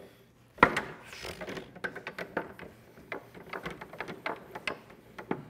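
Foosball table in play: quick, irregular knocks and clacks as the ball is struck by the figures and the rods are worked. The sharpest knock comes about half a second in.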